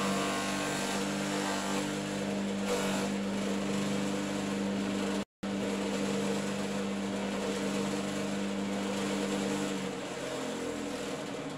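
An engine running at a steady speed, with a constant hum, fading a little near the end. The sound cuts out for an instant about five seconds in.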